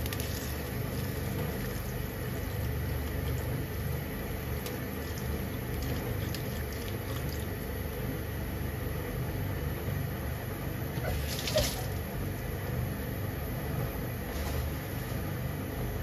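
Soy-milk broth with bean sprouts and meatballs bubbling at a simmer in a frying pan, over a steady low rumble. A single short, sharp click about eleven and a half seconds in.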